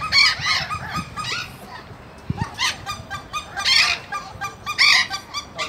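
Waterfowl honking and calling again and again, with louder honks near the start, around the middle and toward the end.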